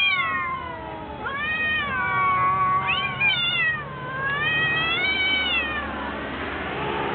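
Domestic cats yowling in a fight: four long, drawn-out howls one after another, each wavering up and down in pitch. Near the end the howls give way to a breathy noise.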